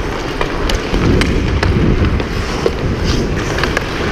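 Hockey skates scraping and carving on rink ice under a steady rush of noise, with sharp clicks of the stick blade handling the puck several times.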